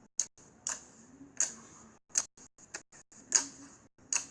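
Slime being squeezed and poked, giving irregular sharp crackling pops and clicks over a soft squishy hiss. The loudest pop comes a little over three seconds in.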